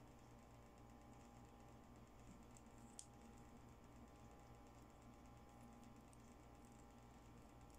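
Faint light clicks of small plastic doll accessories being picked up and handled, with one sharper click about three seconds in, over a faint steady hum.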